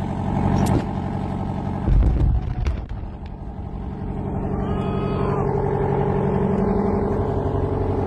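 Demolition charges detonating on a row of buildings: a deep boom about two seconds in, the loudest sound, with sharper cracks just before and after it. Under it runs the steady engine of a nearby armoured vehicle.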